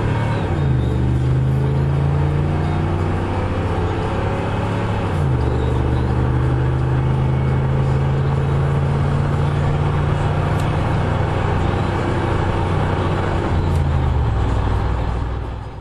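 1994 Chevy C1500's 350 TBI small-block V8 with a Flowmaster cat-back exhaust, heard from inside the cab accelerating hard at wide open throttle. The engine note drops about half a second in and again about five seconds in as the 4L60E automatic upshifts, then drops once more near the end before fading out.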